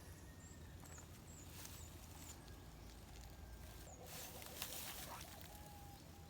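Faint outdoor ambience: a few thin, high chirps, brief rustling and a single click about two-thirds of the way through, over a low steady hum.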